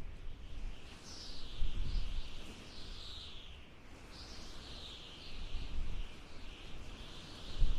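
Howling wind: a gusty low rumble that swells and eases, under a high, wavering whistle that slides up and down.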